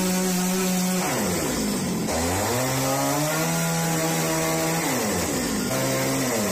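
Two-stroke carving chainsaw cutting wood at high revs. Its engine note falls sharply twice and climbs back each time.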